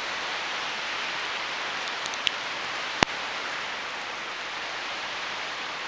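Steady hiss of wind-driven rain in a windstorm, with a few small ticks about two seconds in and one sharp click about three seconds in.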